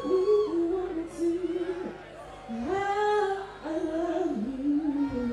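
A woman singing into a handheld microphone, holding long notes in phrases with a short break about two seconds in.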